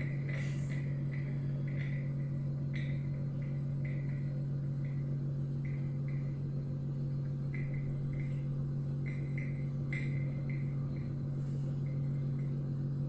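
Magnetic stirrer running under a flask: a steady low electrical hum, with faint short high ticks at irregular intervals.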